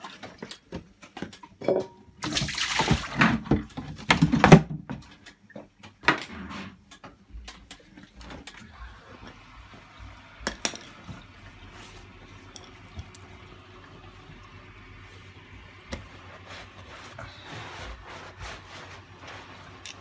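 Bosch WFF1800 washing machine starting a wash and filling: a few loud rushes and knocks in the first five seconds, then a steady low hum under a quieter rush of water.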